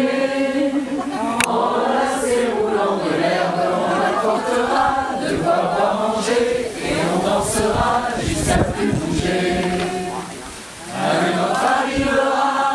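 Mixed choir of men and women singing together under a conductor. About ten seconds in the singing drops away for a moment, then comes back in.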